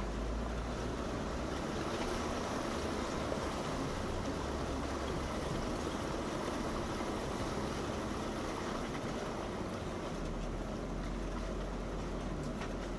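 Steady rushing of creek water around an off-road Jeep Wrangler, with the Jeep's engine running low underneath.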